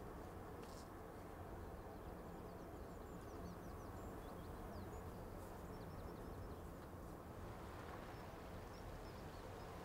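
Quiet outdoor ambience: a steady low rumble with small birds chirping faintly, a quick run of short chirps in the middle.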